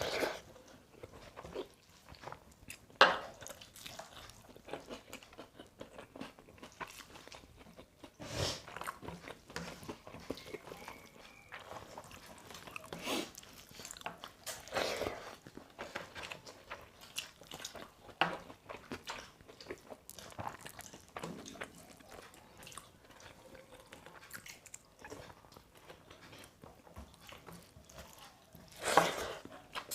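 People eating a meal of rice and dal: faint chewing and soft mouth sounds, broken by scattered short clicks and crunches, the loudest about three seconds in.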